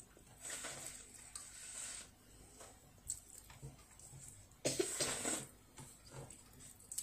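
Quiet eating sounds from a child chewing rice, with a few light clicks and a short, louder rustling noise about five seconds in.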